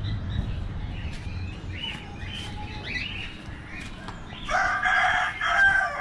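A few short, high bird chirps, then a rooster crows once, loudly, for about a second and a half near the end.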